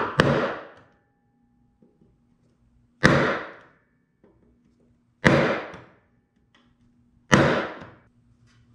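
Bench chisel struck with a nylon-faced Thorex mallet, chopping into a cherry board for a stopped dado. A quick double blow at the start, then single sharp blows about two seconds apart, each with a brief ring.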